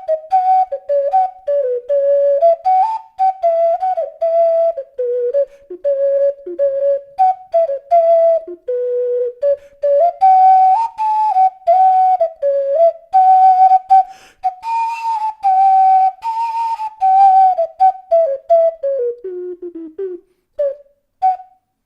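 12-hole alto F ocarina by Sauna Ocarina playing an improvised melody, a pure whistle-like tone moving through many short separated notes and some held ones. Near the end the line descends to the instrument's lowest notes before stopping.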